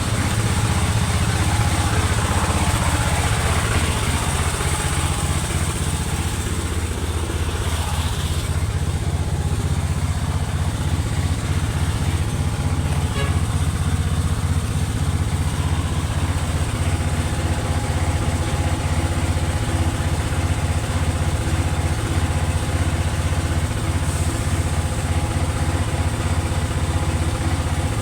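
Diesel engine of a Howo 380 truck idling steadily. A higher hiss over the engine fades out about eight seconds in.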